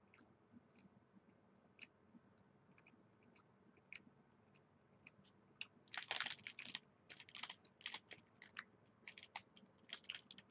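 Close-up chewing of a dense, tough protein bar with almond pieces. Faint scattered mouth clicks at first, then from about six seconds in, loud, rapid crackling chews.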